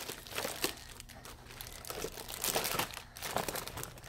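Cellophane wrap and plastic toy packaging crinkling and rustling as they are handled, in irregular spurts.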